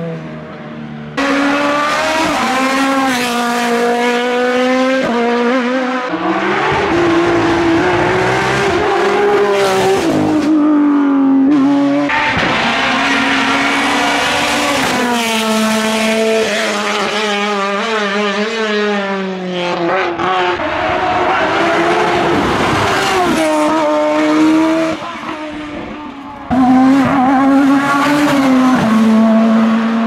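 Race cars at full throttle in turn, first a Škoda Fabia rally car, then a Renault Clio, then an open-cockpit hill-climb prototype. Each engine revs up through the gears, its pitch climbing and then dropping at every shift. The sound cuts off abruptly as each car gives way to the next.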